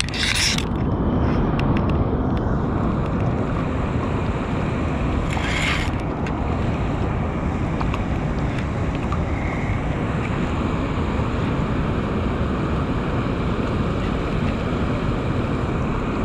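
Steady rushing noise of wind buffeting the microphone over water pouring from a dam outlet, with two short hissing bursts like splashes, one just after the start and one about six seconds in.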